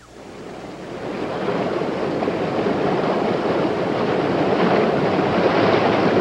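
Cartoon sound effect of rushing water, a dense surf-like roar. It swells up over the first second and a half, then holds steady.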